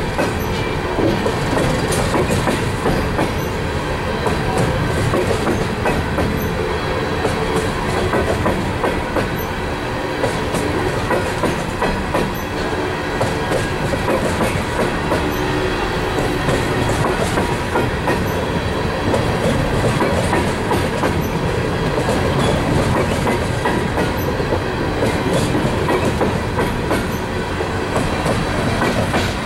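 Empty steel coal hopper cars of a slow freight train rolling past: a steady rumble of steel wheels on rail, with repeated clicks as the wheels cross rail joints.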